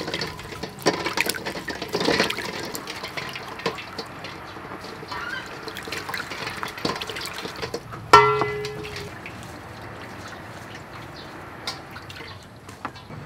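Water splashing and trickling into a steel bowl as boiled duck eggs are scrubbed with a sponge, with small knocks of the eggs and bowl. About eight seconds in, a sudden loud ringing note cuts in and dies away within about a second.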